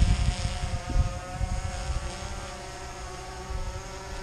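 Camera drone's propellers whining steadily as it flies out carrying a heavy fishing rig and sinker, the load making it hard to control; the sound slowly fades as it moves away, with low rumbling bumps in the first second or so.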